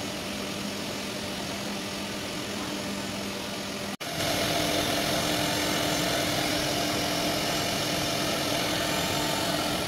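CNC router running while cutting a board panel: a steady machine whir with a steady hum. It briefly cuts out about four seconds in and comes back louder.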